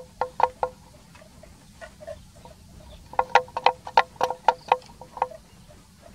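Wooden bell on a grazing water buffalo's neck clonking in short, irregular runs of hollow knocks, a few at first, then a quick cluster of about a dozen from about three seconds in.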